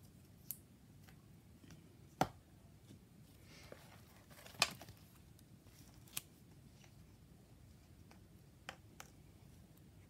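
Quiet handling of paper and craft materials on a cutting mat: a few short, sharp clicks and taps, two of them louder about two and four and a half seconds in, with faint paper rustling.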